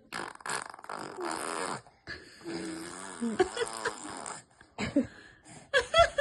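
Fart-like sputtering noises: several short blasts, then a longer wavering, pitched stretch, then more short blasts near the end.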